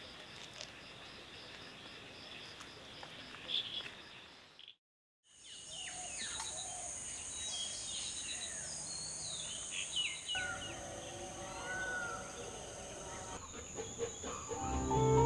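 Outdoor nature ambience: insects shrilling steadily at a high pitch while birds chirp and call now and then. The sound drops out completely for about half a second around five seconds in, then returns with a different insect drone and more bird calls. Music starts to come in at the very end.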